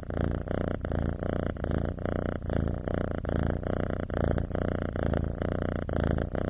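A domestic cat purring steadily.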